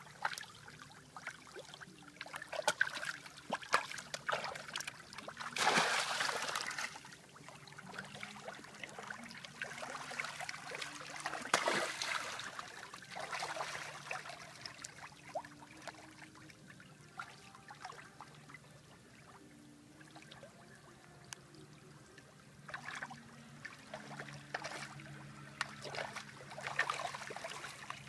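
Water trickling and splashing, with irregular louder rushes, the strongest about six and twelve seconds in.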